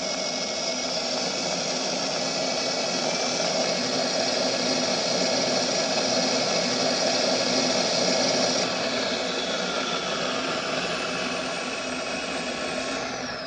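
Sound card in an Avios Super Tucano RC plane playing a simulated turboprop engine through its speaker: a steady running sound that swells a little, then eases off with a falling whine near the end as it winds down and cuts off.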